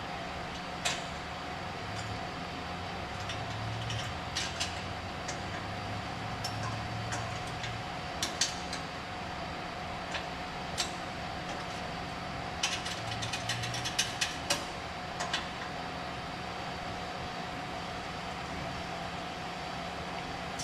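Metal clicks and taps of hand tools working an exhaust V-band clamp, with a quick run of ratchet clicks about two-thirds of the way through, over a steady background hum.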